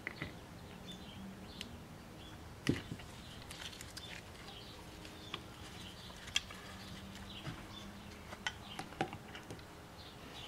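Faint scattered clicks and taps of a plastic brake fluid reservoir being worked by hand onto the rubber grommets of a cast master cylinder, with one sharper knock a little under three seconds in.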